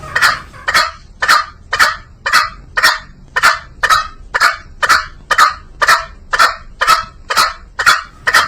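Green junglefowl calling: a steady series of short, sharp calls, about two a second.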